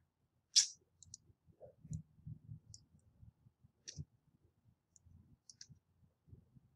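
A few sharp, separate clicks from a computer mouse and keyboard, the loudest about half a second in, the rest spread out over the next five seconds, over a faint low rumble.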